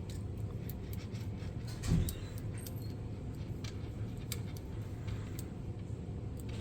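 Faint, scattered light clicks of a lock pick being worked in a Master Lock 146D padlock's keyway under tension, raking at the pins without opening it. A short low sound comes about two seconds in, over a steady low hum.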